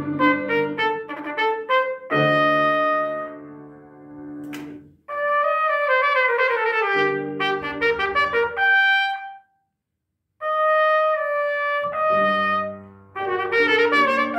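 Trumpet with piano accompaniment: quick runs of short notes, then a held chord that slowly fades. After a break of about a second near two-thirds through, new phrases begin.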